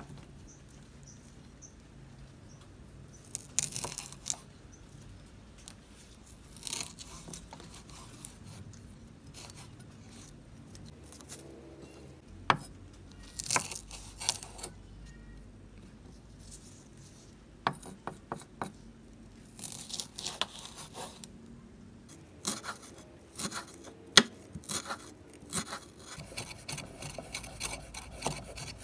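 Cleaver chopping spring onions on a wooden cutting board. Scattered knocks of the blade on the board and rustling of the stalks come first, then a run of quick repeated chops in the last several seconds.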